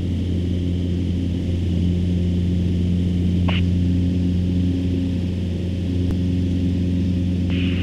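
The Cessna 150's four-cylinder Continental O-200 engine and propeller running steadily in flight, heard from inside the cabin as a constant drone.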